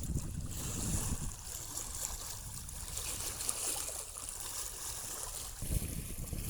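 Strong wind buffeting the microphone in an uneven low rumble, over the steady hiss of water rushing past a sailboat's hull under sail.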